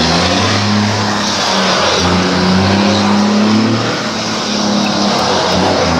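Truck diesel engine with a straight-pipe exhaust, running loud with a deep note whose pitch rises and dips a few times.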